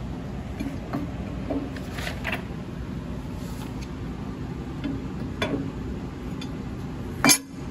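Light clicks and taps of a steel chipper blade being handled and set against the chipper drum, over a steady low background hum, with one sharper click near the end.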